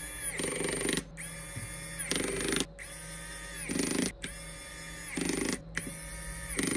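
Electric precision screwdriver set to a low torque, driving small screws into a phone's mid-frame: its motor whines in about five short runs of around a second each, and each run drops in pitch and stops as a screw seats.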